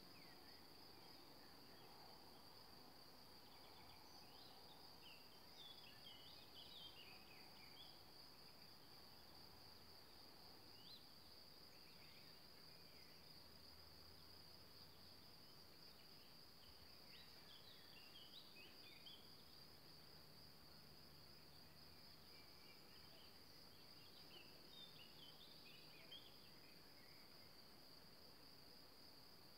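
Near silence: faint outdoor ambience with a steady high-pitched cricket trill and scattered bird chirps. A faint low hum comes and goes in the middle.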